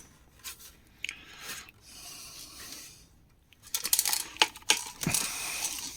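Metal parts of a mini fridge being handled and worked loose: scattered sharp clicks, clinks and short scrapes, busiest in the second half.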